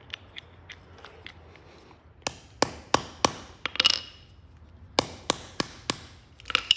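Hammer striking a small setting punch to set a twist-lock fastener onto its backing disc: a few light taps, then two runs of sharp strikes about three a second, a couple of them ringing with a short metallic ping.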